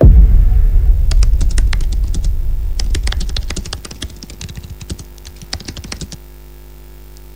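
A deep boom, then rapid irregular keyboard-typing clicks for about five seconds: a typing sound effect for text appearing on screen. Near the end the clicks stop and a steady electrical hum is left.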